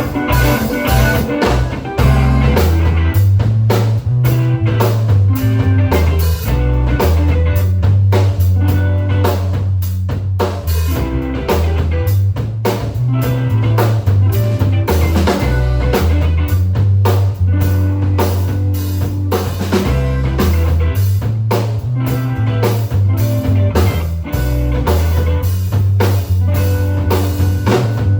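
Live band playing an instrumental passage: electric guitar over a steady drum-kit beat and a prominent moving bass line.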